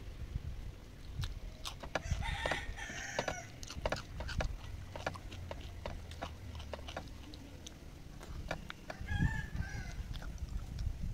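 A rooster crows once, about two seconds in, the call lasting over a second. A shorter chicken call follows near the end. Soft clicks and taps of fingers mixing rice on a metal plate run throughout.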